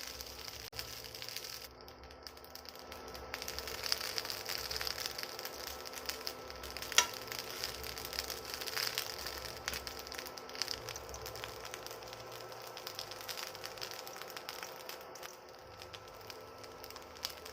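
Food frying in oil in a pan: a steady sizzle full of fine crackles, with one sharp click about seven seconds in.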